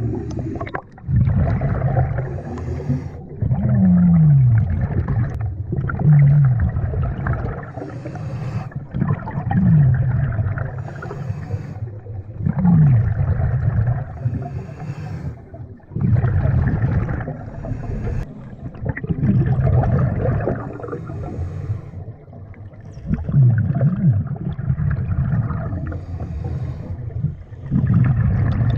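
Scuba diver breathing through a regulator underwater: short hissing inhalations alternating with longer bubbling, rumbling exhalations, one breath every few seconds.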